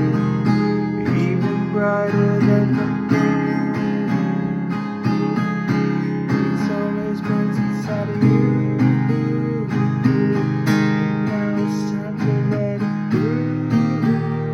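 Acoustic guitar capoed at the first fret, strummed in chords with straight downstrokes.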